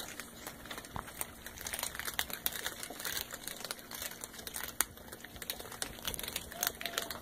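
A group of cats crunching dry kibble: a dense, irregular run of small crunches and clicks.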